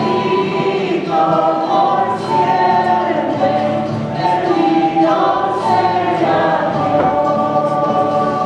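Church choir singing a hymn in held, sustained notes.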